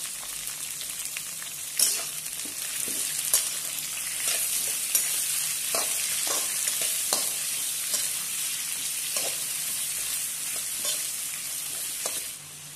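Sliced onions and shallots sizzling in hot coconut oil in a wok, while a metal slotted turner stirs them with sharp clicks and scrapes against the pan about once a second. The sizzling drops off near the end.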